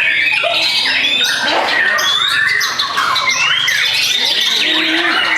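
White-rumped shamas singing in a dense, continuous stream of overlapping whistles, trills and rapid pitch glides, with several birds' songs layered together.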